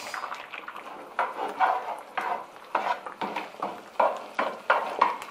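A spatula scraping and scooping fried potatoes out of a skillet in short repeated strokes, about two a second, over the faint sizzle of eggs frying in a pan.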